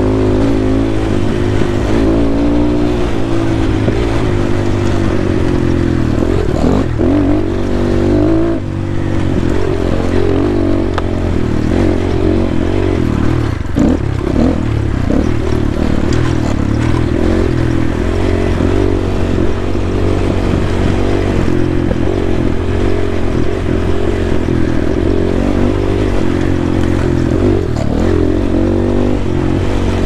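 GPX Moto FSE 250 dirt bike's 250cc single-cylinder four-stroke engine running under load, its revs rising and falling with the throttle. The revs briefly drop off about eight and a half seconds in and again near fourteen seconds.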